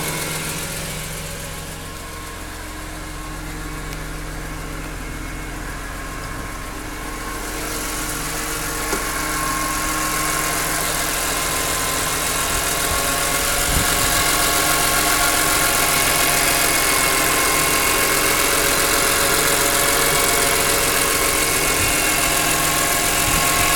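BMW E46 M3's S54 straight-six engine idling with a ticking sound. It grows louder and brighter from about eight seconds in.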